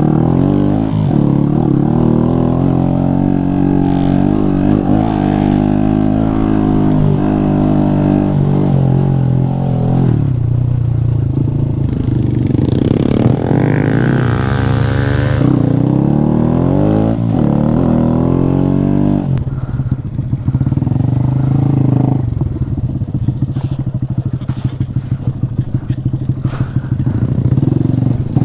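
Small single-cylinder 125 cc motorcycle engine (Honda Grom) riding off-road, its pitch rising and falling with the throttle and revving up briefly near the middle. About two thirds of the way in it drops to a steady low-rev chug.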